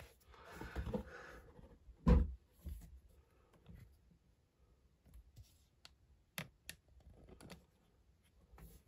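Faint handling noise: scattered light clicks and knocks, with one louder thump about two seconds in and a sharp click a little past six seconds.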